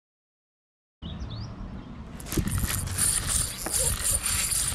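Silence for about the first second, then a low rumble. From about two seconds in, the fast, pulsing ratchety whirr of a fishing reel being cranked while fighting a fish that soon comes unhooked.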